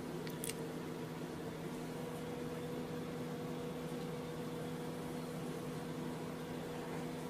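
Steady machine hum with a hiss, holding a few constant tones, and one short click about half a second in.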